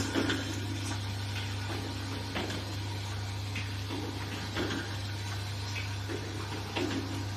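Bamboo clothespin assembling machine running: a steady low hum from its vibratory bowl feeders, with light, irregular clacks from the assembly mechanism about once a second.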